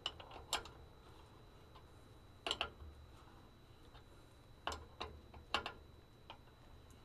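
Faint metallic clicks in twos and threes, a second or two apart, from a wrench turning the nut on the caging bolt of an air-brake spring brake can, drawing the heavy brake spring back in.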